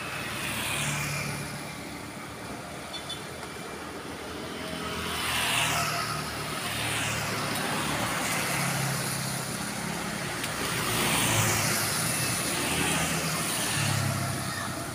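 Road traffic passing on a wet road: motorcycles and trucks go by one after another, their tyres hissing on the wet surface and their engines humming low. Each pass-by swells and fades, falling in pitch as it goes past, with the loudest passes about five seconds in and again near eleven seconds.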